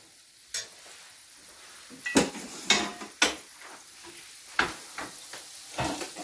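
Scrambled eggs sizzling faintly in a stainless-steel skillet, with about seven sharp clicks of metal utensils against the pan and dishes.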